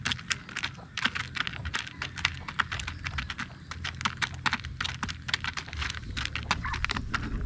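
Chickens pecking grain from a metal feeder pan: rapid, irregular sharp clicks of beaks striking the feed and the pan, several a second.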